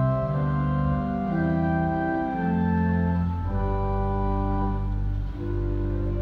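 Church pipe organ playing held full chords over a deep pedal bass, the harmony changing about once a second, with a short break between chords about five seconds in.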